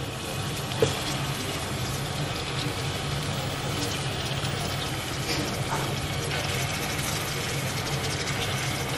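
Food sizzling and bubbling in pots on the stove, a steady even hiss over a constant low hum.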